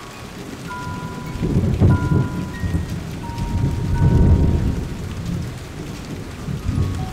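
Rain, with thunder rumbling about two seconds in and again, louder, about four seconds in. A slow melody of soft single notes plays over it.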